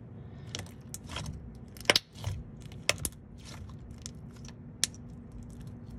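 Slime being squeezed and poked by hand, crackling and popping with scattered clicks and a few sharp snaps about two, three and five seconds in.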